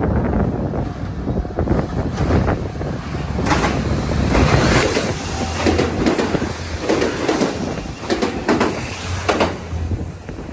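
A train passing close by, its wheels clacking over rail joints in a string of sharp strikes through the middle of the passage, over a steady rumble.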